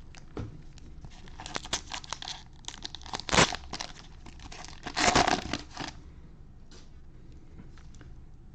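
Plastic wrapper of a trading-card cello pack crinkling and being torn open, with a short loud rip about three and a half seconds in and a longer one about five seconds in.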